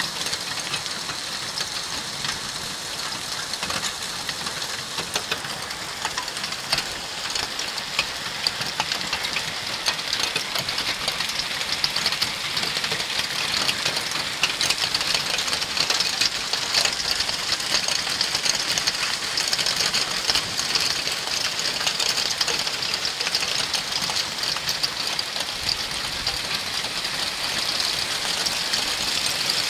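Hail and heavy rain pelting a paved street in a thunderstorm: a dense, steady hiss full of sharp ticks from the stones striking. It grows somewhat louder after the first ten seconds.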